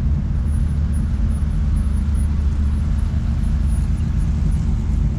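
Engines of classic cars running as they cruise slowly past in a line: a steady low rumble.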